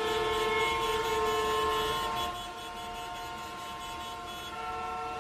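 Busy road traffic with several vehicle horns honking at once, long held tones of different pitches overlapping. The horns are loudest for the first two seconds or so, then ease off a little before more join near the end.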